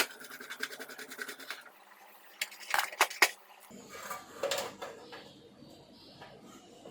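Clicks, light clinking and scraping of TV parts being handled as an LED backlight strip is fitted back into the TV panel. A sharp click comes at the start, then a quick run of light rattling, then a few louder clicks about three seconds in.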